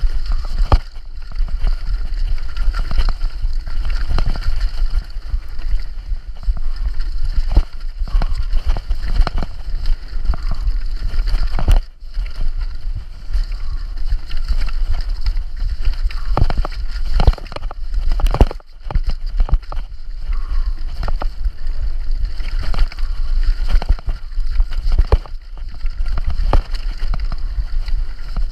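Wind buffeting the microphone of a camera riding a downhill mountain bike at race speed, with a constant rumble and irregular rattles and knocks as the bike pounds over rocks and roots. The noise drops out briefly twice, about twelve and nineteen seconds in.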